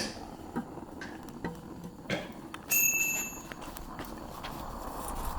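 Knocks and clicks of metal and tools being handled, with a brief high metallic ring about three seconds in. A steady low rushing noise sets in near the end.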